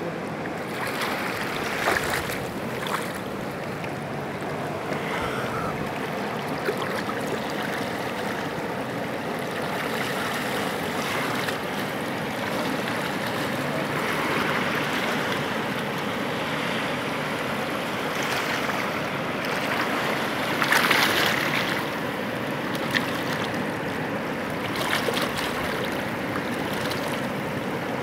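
Fast-flowing, silty river rushing steadily past, water washing around rocks at the edge, with a few small knocks and one brief louder rush of water about three-quarters of the way through.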